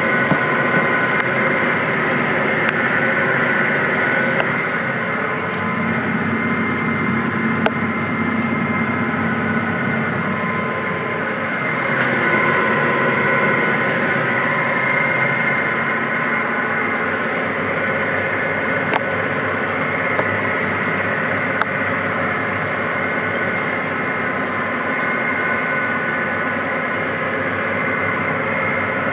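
Tractor engine running steadily under load while tilling, heard from inside the cab.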